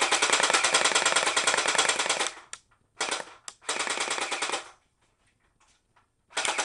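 Crosman Stinger R71 electric airsoft rifle firing on full auto: a long rapid rattle of shots that stops about two seconds in. Short bursts follow, one at about three seconds and a longer one around four seconds, and another starts near the end.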